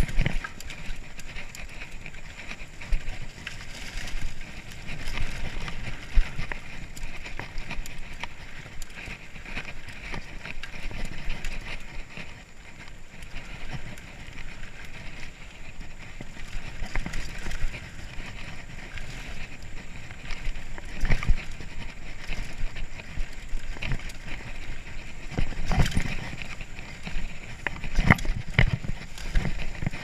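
Mountain bike ridden fast down a dirt forest trail: the tyres rolling and the bike rattling, with irregular sharp knocks over roots and bumps, heaviest near the end.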